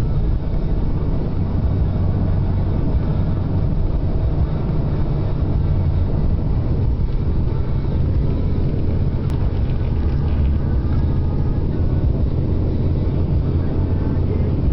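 Blizzard wind buffeting the microphone: a loud, steady low rumble, with a single click about nine seconds in.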